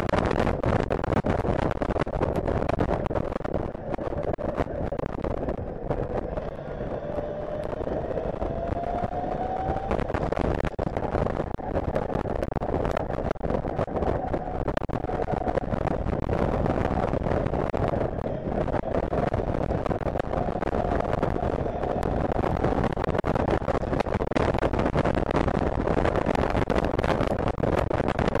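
Onboard sound of a Zongshen DC electric race motorcycle at speed: heavy wind rush buffeting the microphone, with a faint electric motor whine that rises in pitch twice as the bike accelerates.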